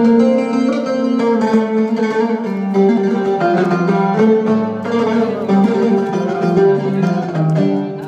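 Live instrumental band music during a sound check: a plucked-string melody over held notes, with a deeper bass note coming in about halfway through.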